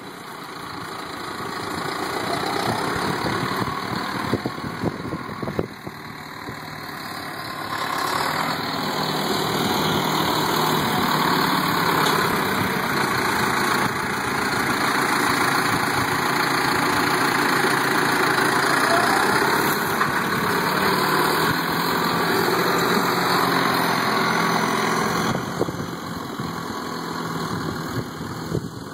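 Diesel engine of a green and yellow John Deere tractor running steadily while it works its front loader, lifting round hay bales on a bale spear.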